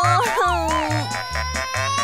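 Upbeat children's background music with a steady bass beat and wavering, gliding synth tones.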